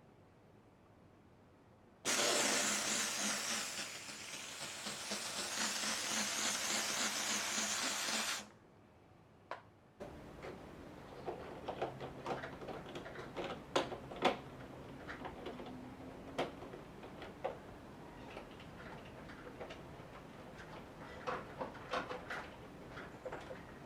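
Steam cleaner jetting steam in a loud, steady hiss for about six seconds, cutting off sharply. After it come scattered light clicks and knocks of handling.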